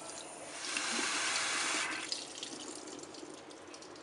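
Water running from a kitchen faucet, through a faucet-mounted filter, into a small bowl. The splashing is loud for about a second, then dies down to a quieter trickle with a few light clicks.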